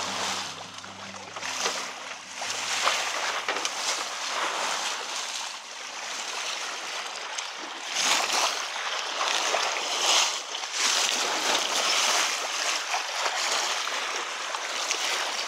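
Sea water rushing and splashing along a sailing yacht's hull as it moves under way, swelling and easing every couple of seconds.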